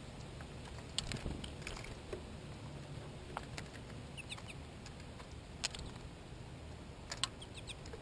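Small birds (American goldfinches, a black-capped chickadee and a tufted titmouse) pecking seed and landing on a clear plastic window feeder: irregular sharp clicks and taps, with a few short high chirps about halfway.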